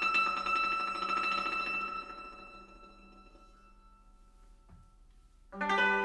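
A trio of yangqin (Chinese hammered dulcimers) playing. Rapidly repeated strikes on held notes fade out after about two seconds and the strings ring down almost to silence. Shortly before the end all three come back in with loud struck chords.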